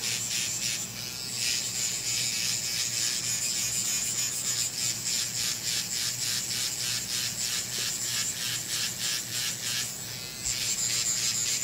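Finishing Touch Flawless battery-powered facial hair remover running against the skin of the cheek: a steady, high-pitched motor buzz with a quick regular pulsing as the head is worked over the face in small circles.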